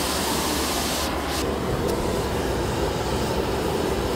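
Hand-held gas torches burning with a steady rushing noise, with a brief sharper hiss about a second in.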